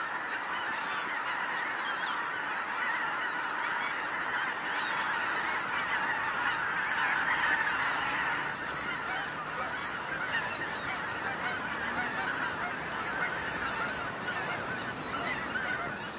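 A large flock of wild geese calling together: a dense, continuous chorus of many overlapping honks.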